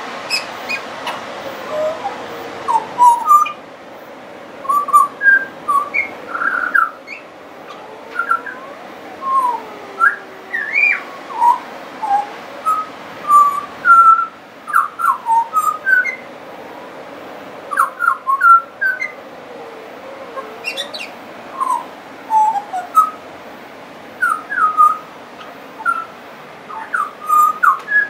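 Pied butcherbird singing a long, varied song of short, clear whistled notes, several a second, in quick runs with brief pauses between phrases. A few slower notes slide down in pitch.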